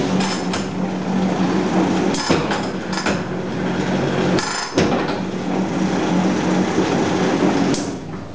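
Dough sheeter running as a folded slab of pastry dough rides the conveyor belt between its rollers: a steady motor hum with several sharp clacks, stopping near the end.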